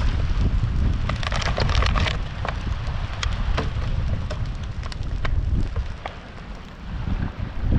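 Bonfire of beach plastic and trash crackling and popping, with a cluster of pops about a second in, over wind rumbling on the microphone.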